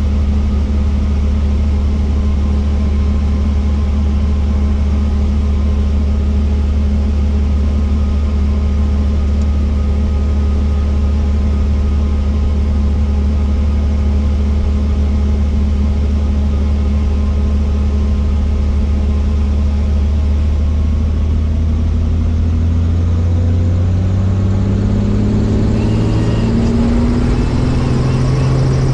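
Helicopter engine and rotor running with a steady low drone that rises in pitch over the last several seconds.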